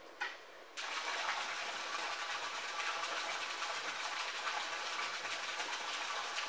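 A stream of water from a fill pipe pouring into a concrete koi tank and splashing on the surface, fresh water being added to the tank. It starts about a second in and then runs steadily.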